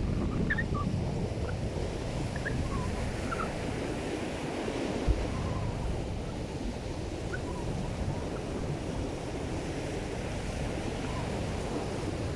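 Ocean surf breaking on a beach, with strong wind buffeting the microphone and a single thump about five seconds in.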